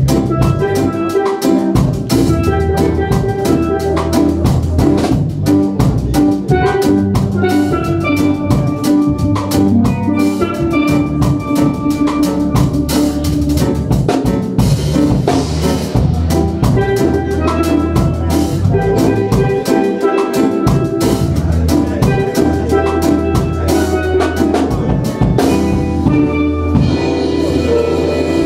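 Steel pans played live, carrying the melody over keyboard and a drum kit; the drums drop out near the end.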